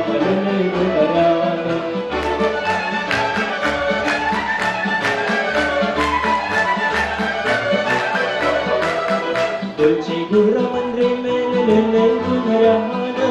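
Romanian folk orchestra playing an instrumental passage: violins carry the melody over a steady, even beat from the accompaniment.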